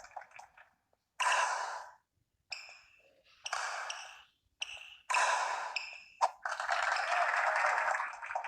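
Badminton play on an indoor court: a string of sharp-onset hissing bursts with three short, high sneaker squeaks on the court floor in among them.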